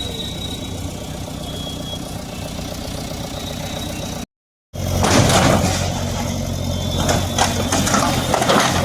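Diesel engine of a JCB earth-mover (the 'bulldozer') running steadily. After a brief cut in the audio, it is louder, with clattering and knocks over the engine.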